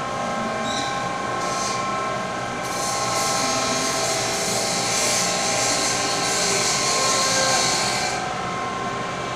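Steady drone of workshop machinery running, with several held tones, and a high hiss that swells about three seconds in and drops away about eight seconds in.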